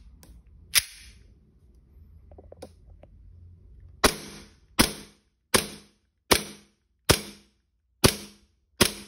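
AW HX2002 gas blowback BB pistol running on light gas: a single click about a second in as the slide is racked, then, from about four seconds in, seven sharp shots roughly three-quarters of a second apart, each a crisp pop of gas with the slide cycling.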